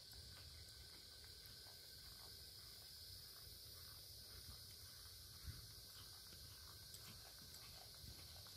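Faint hoofbeats of a horse loping on arena sand, irregular soft knocks with one louder knock about five and a half seconds in, over a steady high-pitched hiss and a low rumble.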